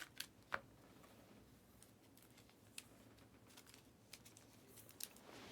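Near silence with a few faint, soft clicks of trading cards being handled and slid over one another, mostly in the first second and again near the end.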